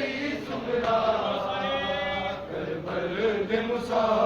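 Men's voices chanting a noha, a Shia mourning lament, in long sung phrases.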